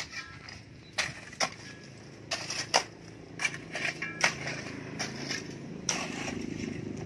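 Metal hand tools chopping and scraping into hard, stony soil and rubble, about ten irregular sharp strikes, a few with a brief metallic ring.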